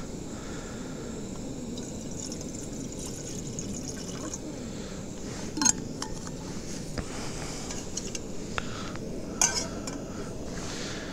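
Liquid poured into a pot while making tea on a camp stove, with a few sharp clinks of cookware over a steady low rumble.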